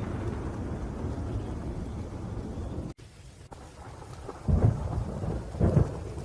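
Thunderstorm with rain: a steady low thunder rumble that cuts off abruptly about three seconds in, as at an edit splice, then a softer rain hiss broken by two loud low thunder rumbles about a second apart near the end.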